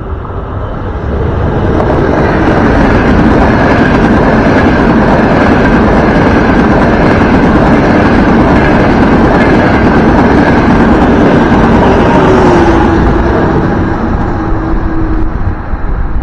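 Trenitalia Frecciarossa high-speed train passing through the station at speed without stopping: a rush of wheels and air that builds over the first couple of seconds, stays loud, then fades about three seconds before the end as the train pulls away, leaving a faint lingering whine.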